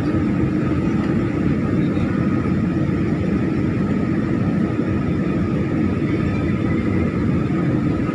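Steady cabin noise of an airliner in flight, heard inside the passenger cabin: an even rumble of engines and airflow, with a faint steady whine above it.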